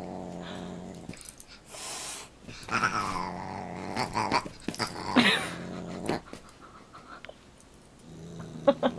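Dog growling in low stretches while play-fighting with a cat that swats at its face, broken by a few short, higher cries around the middle.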